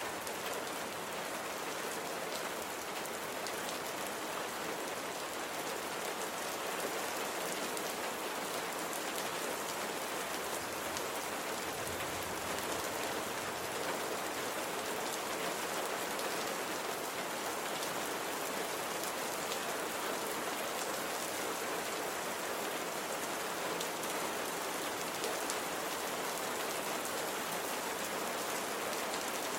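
Steady rain falling: an even hiss with scattered drops ticking on a surface.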